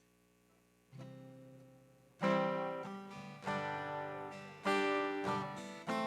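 Acoustic guitar strumming chords, starting about a second in, with a strong strum roughly every 1.2 seconds that rings and fades before the next.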